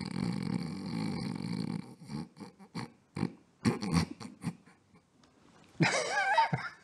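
A man's loud, rough snore lasting about two seconds, followed by several short snorts. Near the end comes a brief wavering, high-pitched sound.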